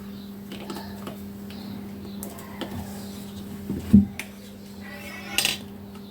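Fork parts and tools handled on a workbench: light metallic clinks, a loud knock about four seconds in, and a short rasping zip of a cable tie being pulled tight about a second later.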